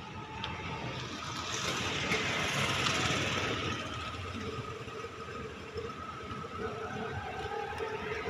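Outdoor traffic noise: a motor vehicle passes, swelling for a few seconds about two seconds in, then easing off, over a faint steady hum.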